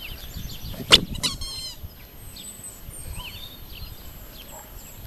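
Rubber chicken squeaky toy squeezed once about a second in: a sharp onset and then a short squawk of about half a second. Small bird chirps go on in the background.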